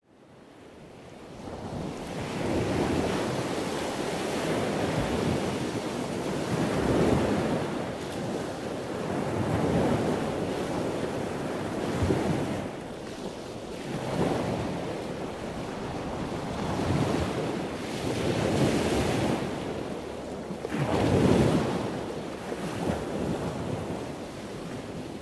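Ocean surf breaking on a rocky shore, swelling in repeated surges a few seconds apart. It fades in over the first couple of seconds.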